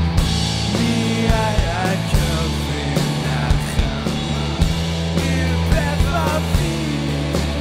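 Live rock band playing: drum kit, electric bass and electric guitar in full sound. The bass holds steady low notes under a regular drum beat, and twice a lead part wavers in pitch.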